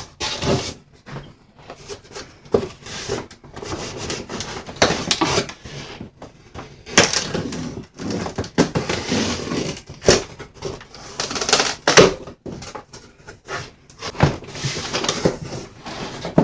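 Cardboard shipping box being handled and opened: the top flaps are pulled back, with irregular rustling, scraping and knocks of stiff cardboard throughout.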